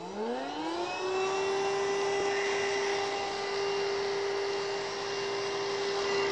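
Hoover Rhapsody RA22HCG cordless stick vacuum switched on with its small Pet Hair Remover electric brush fitted. The motor spins up over about a second into a steady whine and keeps running.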